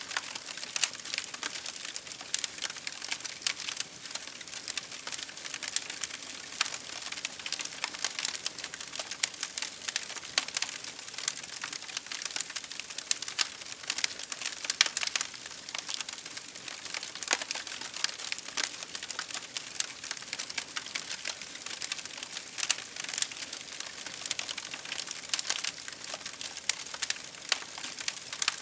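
Fire crackling: many irregular small pops and snaps over a soft steady hiss, with a few louder pops here and there.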